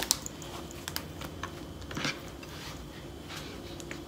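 Light taps, small clicks and soft rustling of a thin spring-roll wrapper being laid down and smoothed flat on a plastic cutting board by hand, the sharpest tap about two seconds in.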